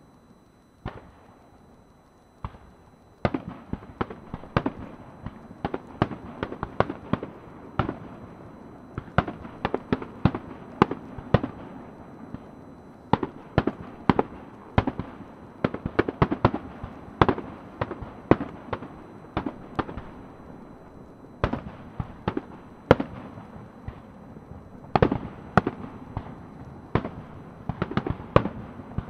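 Fireworks display: a couple of single shell bursts, then from about three seconds in a dense, irregular barrage of sharp bangs, several a second at times, over a continuous low rumble.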